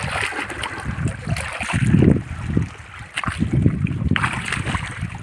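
Water splashing and running, with wind gusting on the microphone in uneven low rumbles.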